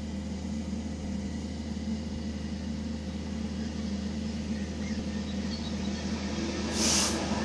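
Class 66 diesel locomotive approaching, its 12-cylinder two-stroke EMD engine giving a steady low drone that grows a little louder. A brief, loud hiss comes near the end.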